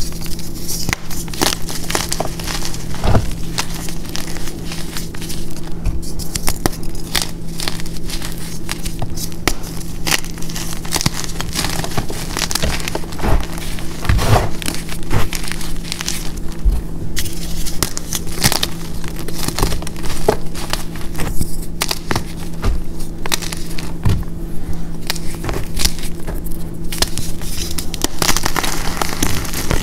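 Hands crushing and crumbling a pressed block of reformed gym chalk powder mix (gym chalk, baby powder, corn starch and baking soda), a dense run of crisp crackles and crunches as the block breaks apart and falls into loose powder.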